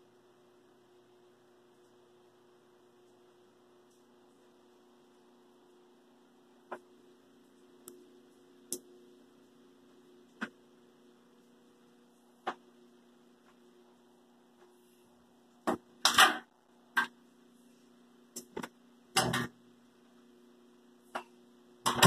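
Faint steady electrical hum, with scattered sharp clicks from about seven seconds in, then a run of louder knocks and bangs in the second half. These come from a Hotpoint top-loading washing machine being handled, its lid and laundry moved.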